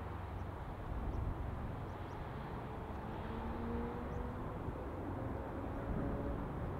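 Distant AH-64 Apache helicopters flying down a valley: a low rotor rumble with faint steady engine tones, mixed with wind buffeting the microphone.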